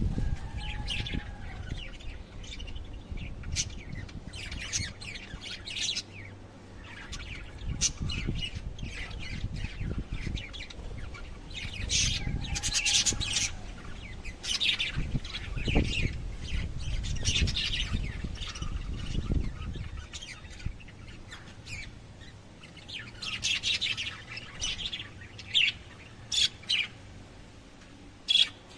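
Lovebirds chirping in quick, high calls, with a few louder sharp calls near the end. A low rumble lies under the first two-thirds.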